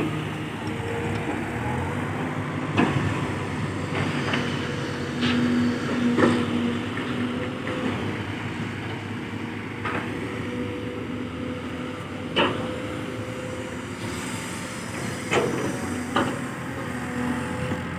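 Kobelco SK210-8 long-reach excavator's diesel engine running steadily under working load, with sharp metallic knocks and clanks every second or few seconds as the machine digs and loads.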